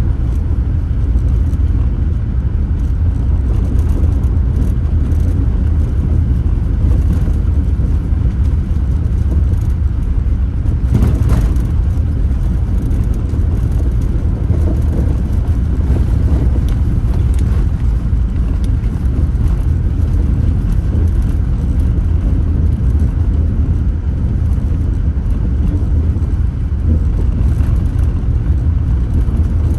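A car driving on the road, with a steady low rumble of engine and tyre noise. About eleven seconds in there is a brief louder rush.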